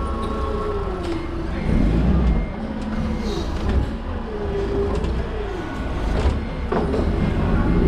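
Toyota counterbalance forklift's engine and hydraulics running, the pitch rising and falling as the mast levers are worked, with a few sharp knocks.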